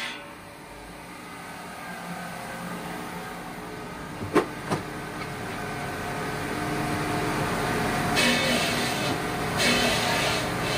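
Large water-cooled circular stone saw running and cutting through a rough stone block, a steady grinding machine noise with water spray hissing. Two sharp knocks come about four and a half seconds in, and the noise grows louder toward the end.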